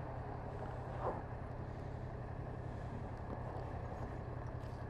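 Motorcycle engine, the Yamaha MT-07's parallel twin, idling with a steady low hum, with a brief higher sound about a second in.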